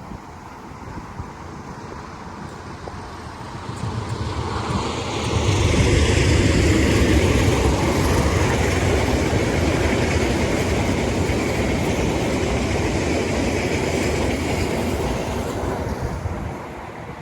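A train passing close by on the rails: it swells over about two seconds, stays loud for about ten seconds with a deep rumble under a high hiss, then drops away near the end.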